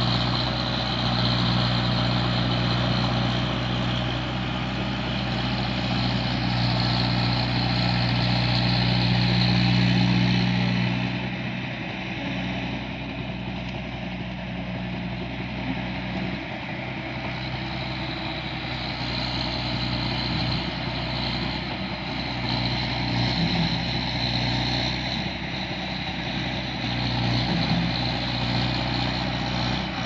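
An engine running steadily under a constant hiss, a little quieter from about eleven seconds in.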